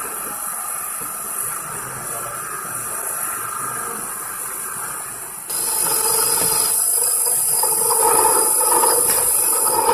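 A small CNC training lathe running, with a steady mechanical hiss. About five and a half seconds in, a louder, high-pitched hiss with a thin whine cuts in suddenly and holds.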